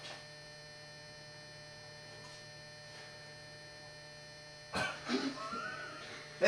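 Steady low electrical mains hum with faint steady tones, held through a long silent pause. About five seconds in, a short burst of a voice breaks in.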